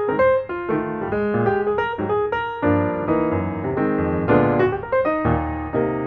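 Background piano music: a tune of quick notes over chords.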